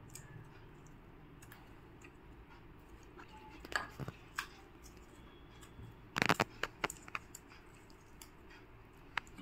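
Fingers peeling charred skin off roasted pointed gourds in a bowl of water: faint wet squelches and a few sharp clicks, with a short burst of clicks about six seconds in.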